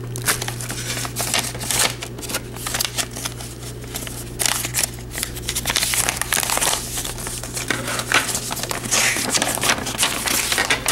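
Padded bubble mailer crinkling and rustling as it is handled and its contents are pulled out: irregular crackles and scrapes throughout.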